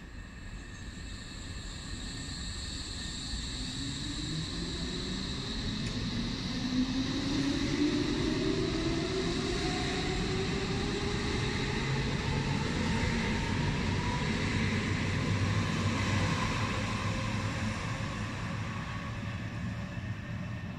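S-Bahn Berlin class 480 electric train pulling out and accelerating past, its traction drive giving a whine that climbs steadily in pitch over wheel and rail rumble. The sound swells as the cars pass and eases off near the end as the train draws away.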